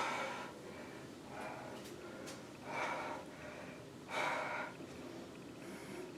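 A woman's hard, gasping breaths in a coughing fit, with three short, breathy bursts against quieter breathing.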